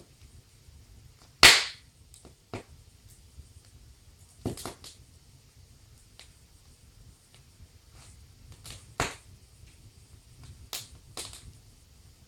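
Wood fire crackling in a fireplace: irregular sharp pops and snaps from the burning logs, the loudest about a second and a half in, with several more scattered through.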